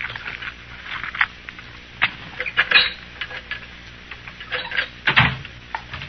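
Radio-drama sound effect of a lamp being lit: a scattering of small clicks, scrapes and light clinks, with a busier cluster a little before halfway and another near the end.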